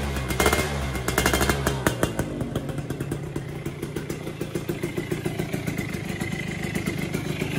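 Suzuki FIZR's single-cylinder two-stroke engine running faster for about two seconds, then dropping back to an idle with an uneven, pulsing beat, while its carburettor jet needle setting is being tested.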